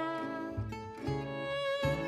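Gypsy jazz quartet playing: violin holding a melody over the chug of two acoustic guitars and plucked double bass notes about every half second.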